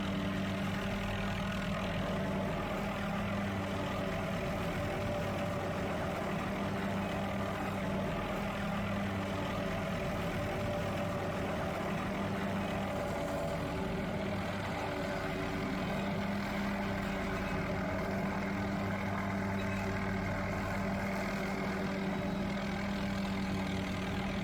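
Helicopter running as it hovers and works an aerial tree-trimming saw, a steady, unbroken engine and rotor drone.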